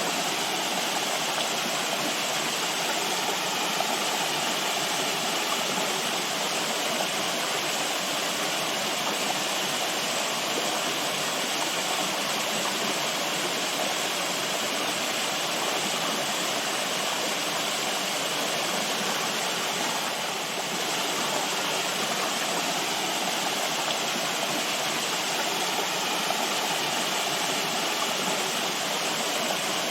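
Natural running water rushing steadily, an even wash of sound with no breaks.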